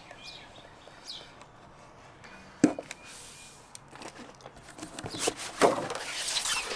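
Utility knife scoring trim coil stock along a marked line: a sharp click, then repeated rasping scrape strokes that grow louder over the last couple of seconds. A few faint bird chirps sound near the start.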